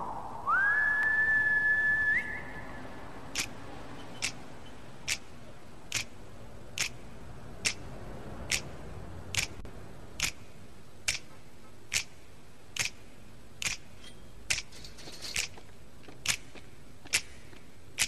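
A single held whistle near the start, rising into a steady note for about two seconds with a slight upward flick at the end. Then finger snaps in a slow, even rhythm, a little more than one a second, about seventeen of them.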